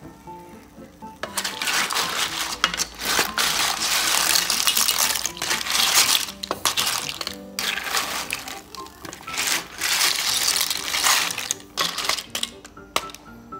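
Raw cockle shells clattering and clinking against one another in rough, uneven stretches as the pile is stirred and shifted by hand, with background music underneath.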